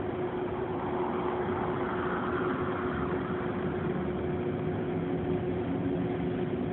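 Steady machine hum with one constant droning tone; a faint rushing swells and fades about one to three seconds in.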